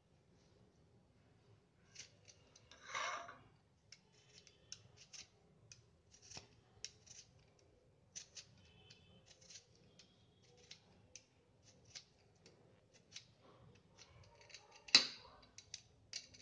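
Hand-held vegetable peeler scraping the skin off a potato in quick, short strokes, with a longer scrape about three seconds in. A sharp knock near the end is the loudest sound.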